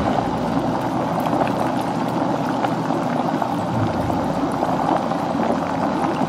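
Steady rushing noise like running or pouring water, even and unbroken, with no tune.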